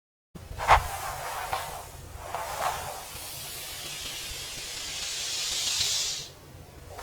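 A few short clicks, then a hiss that builds for about three seconds and cuts off suddenly.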